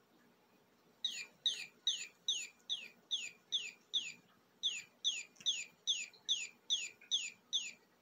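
Chirping toy bird sounding a fast, even run of short chirps, each sliding down in pitch, about two and a half a second. It starts about a second in, breaks briefly midway, and stops shortly before the end.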